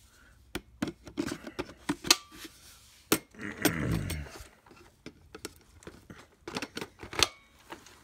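Scattered plastic clicks and knocks as the parts of a Hart cordless stick vacuum, its extension wand and attachments, are handled and set down on carpet. About halfway through there is a short low sound that falls in pitch.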